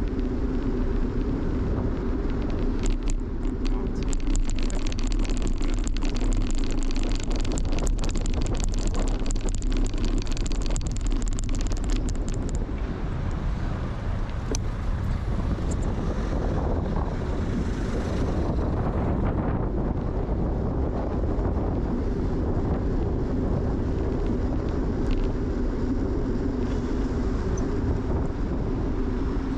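Bicycle riding noise: wind on the microphone and steady tyre and road rumble, with a dense rattle of clicks from about three seconds in until about twelve seconds in.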